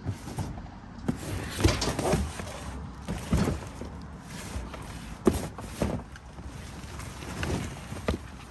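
Rummaging through trash in a dumpster: irregular knocks and clatters with rustling, about a dozen scattered impacts.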